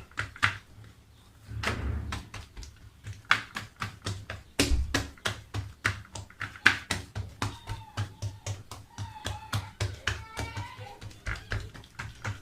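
Quick, irregular light taps and pats, several a second, from hands pressing and patting out pizza dough; a faint voice is heard in the background near the middle.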